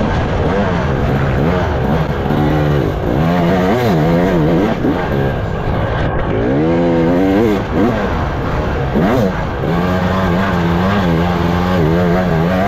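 Off-road racing motorcycle's engine, heard close from on board, revving up and down over and over as the throttle is worked, then holding steady revs for a couple of seconds near the end.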